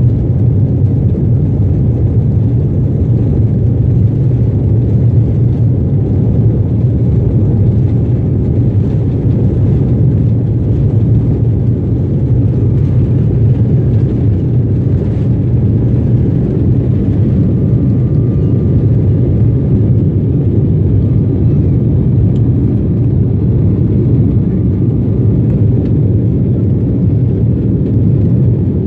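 Passenger jet cabin noise during the takeoff roll and initial climb: the engines at takeoff thrust make a loud, steady, low rumble. A faint thin whine joins in the second half.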